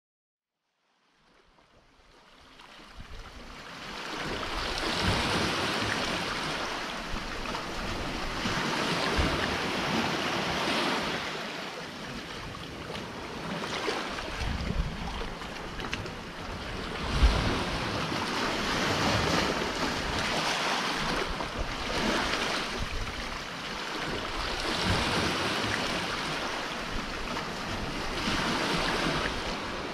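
Sea surf washing in and breaking around rocks, rising and falling in swells every four to five seconds, with wind buffeting the microphone. The sound fades in over the first few seconds, and a brief low thump about halfway through is the loudest moment.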